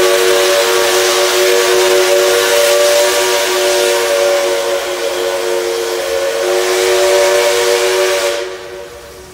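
NSW 59 class steam locomotive 5917's chime whistle held in one long chord of several notes over a steam hiss, cutting off about eight seconds in.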